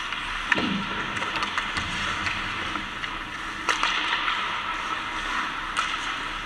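Ice skate blades scraping across the rink surface, with a few sharp clacks of hockey sticks and puck.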